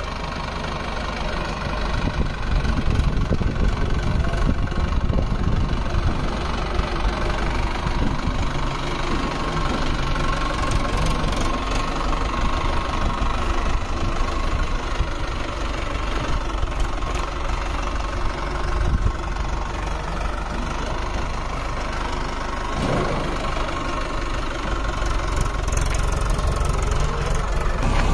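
Heavy diesel engine running steadily, a little louder from about two seconds in.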